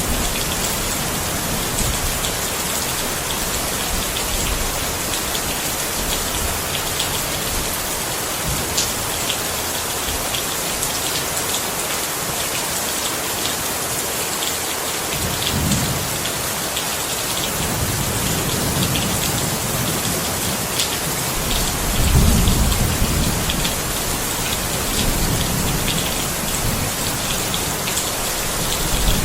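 Steady rain falling, an even hiss with many individual drops ticking. Low rumbles of thunder swell up about halfway through and again later.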